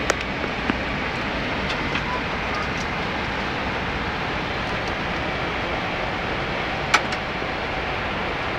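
Steady rush of airflow and engine noise on the flight deck of a Boeing 767 on approach, with two sharp clicks, one at the start and one about seven seconds in.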